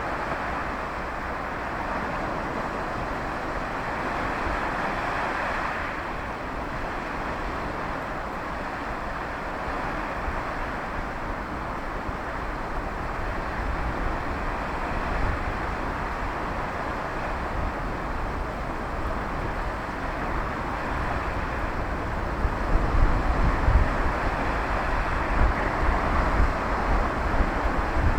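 Sea surf breaking and washing on the shore, a steady rush that swells and eases. Wind buffets the microphone in low gusts, growing stronger in the second half.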